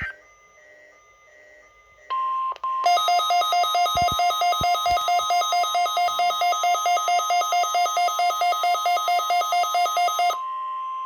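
NOAA Weather Radio warning alarm tone, a steady tone near 1 kHz, from a weather radio receiver during the weekly test. About three seconds in it sets off the receiver's own loud alarm, a rapid beeping of about four beeps a second that lasts some seven seconds. The steady tone continues alone after the beeping stops.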